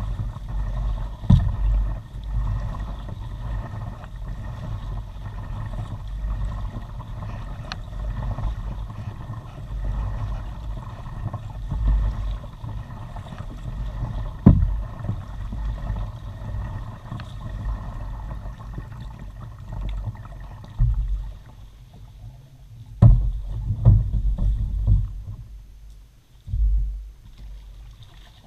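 Kayak being paddled through a mangrove creek, heard from a bow-mounted camera: a steady low rumble of water and hull, broken by several sharp knocks and thumps from the paddle and hull, the loudest a little before halfway and a few seconds later in the second half.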